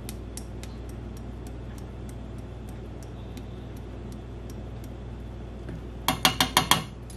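A metal spoon tapping quickly about six times against a metal measuring teaspoon near the end, knocking ground ginger into a saucepan. Before that there is only a steady low hum with faint, regular light ticking.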